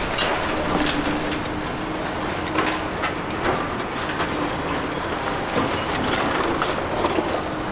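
Tracked excavator working in soil: engine and hydraulics running with a faint steady hum, and scattered knocks and clatter all through.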